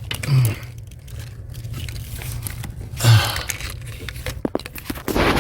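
Hand tools clicking and scraping on metal while working a hard-to-reach bolt, with a few short grunts of effort and a breath near the end.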